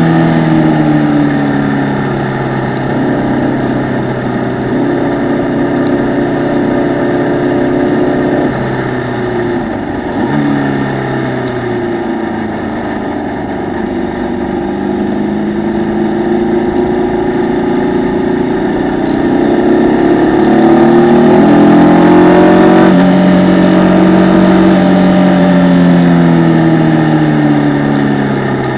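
Formula Vee racing car's air-cooled Volkswagen flat-four engine running hard, heard onboard. The revs hold high, drop and change about eight to eleven seconds in, then climb slowly to a peak about three-quarters of the way through and fall away near the end.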